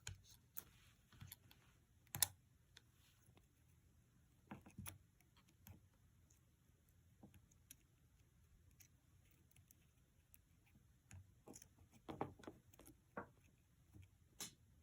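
Faint, scattered small clicks and taps as flex-cable connectors are pressed onto an iPhone XS Max's board and small tools are handled, with a sharper click about two seconds in and a cluster of taps near the end.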